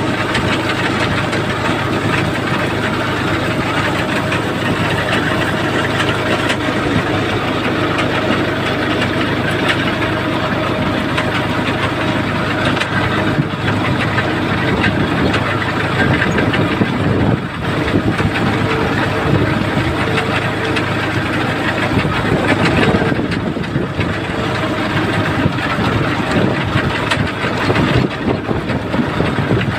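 A 40 hp tractor's engine running steadily while the tractor harvests potatoes.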